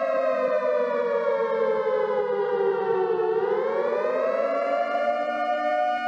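Tornado warning siren sounding a held tone that slides down in pitch over about three seconds, then climbs back up and holds steady again.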